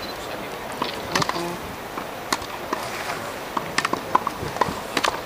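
Scattered sharp clicks and knocks at irregular intervals, several in quick pairs in the second half, over a steady background hum.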